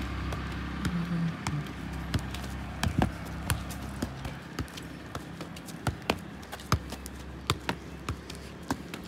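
A football juggled on the feet: sharp, separate thuds of the ball off the foot, about one or two a second.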